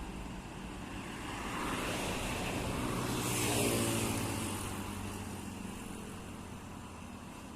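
A bus engine passing by, growing louder to a peak about three and a half seconds in and then fading away.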